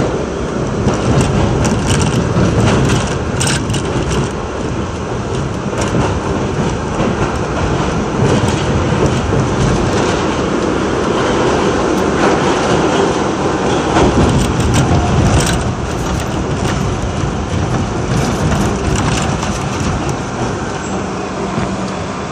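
R62A subway train heard from inside the lead car, running on into an underground station: a steady rumble of wheels on rail with scattered clicks from rail joints. It eases a little near the end as the train slows along the platform.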